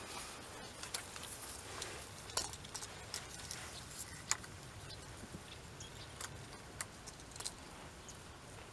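Fishing rod and reel handled through a cast of a float rig: faint, scattered clicks and ticks, the sharpest about two and four seconds in.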